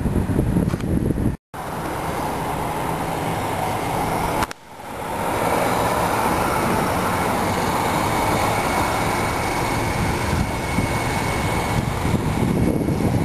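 Steady vehicle running noise, a low engine hum under road and wind noise. The sound cuts out abruptly once, briefly, about a second and a half in, and again about four and a half seconds in, then builds back up.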